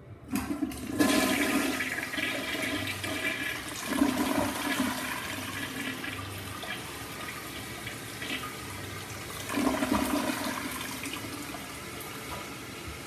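American Standard toilet flushing: water rushing and swirling down the bowl. The rush surges a second time near ten seconds in, the toilet's double flush.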